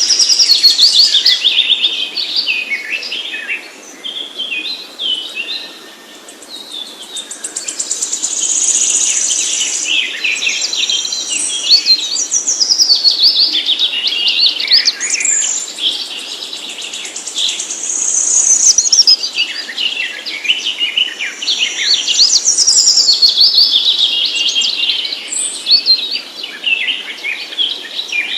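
Songbird singing a long, varied song of quick high chirps and warbled notes, easing off briefly around four to six seconds in.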